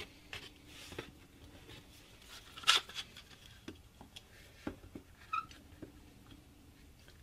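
Blue one-handed trigger bar clamps being fitted and tightened on a glued wooden block: scattered light clicks and knocks of the ratchet trigger and clamp bars against the wood, the sharpest click about two and a half seconds in. A brief high squeak about five seconds in.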